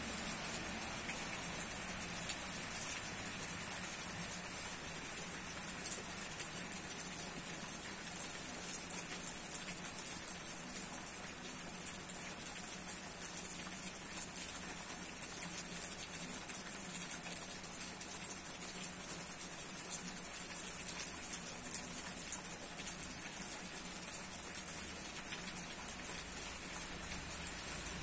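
Steady rain falling on tree foliage: an even hiss with many scattered drop ticks.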